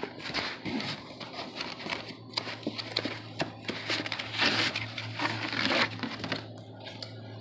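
Cardboard packaging being handled and opened by hand: scattered clicks and knocks of the box with crinkling and rustling of the packing, loudest in a long rustle about four to six seconds in.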